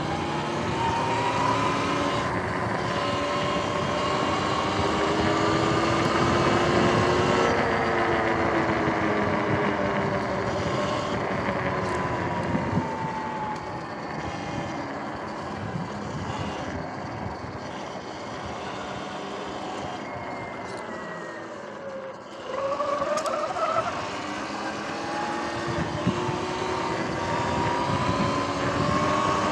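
Sur-Ron X electric dirt bike's motor whining under way. The pitch rises as the bike speeds up, sinks slowly as it eases off, dips sharply about three-quarters through, then climbs again with renewed acceleration. Under it runs a steady rush of wind and tyre noise.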